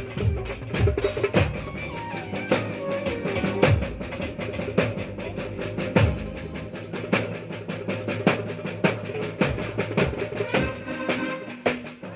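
Drums played during a sound check: a fast, continuous run of hits, with heavier deep strikes every second or two among them.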